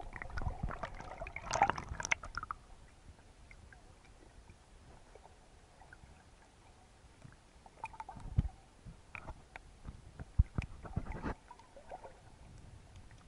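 Muffled underwater sound picked up by a camera held under the sea: faint water movement with irregular knocks and thumps against the housing, a cluster of them near the start and more in the second half.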